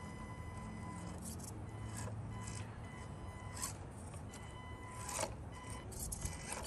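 Small electric RC crawler in low gear climbing over rocks: a faint steady motor and gear whine, with scattered clicks and scrapes as its tires and chassis meet the stones.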